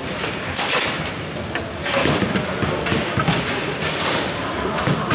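Bonzini table football in play: repeated sharp clacks of the ball and figures and rods knocking at the table's sides, over a steady background din.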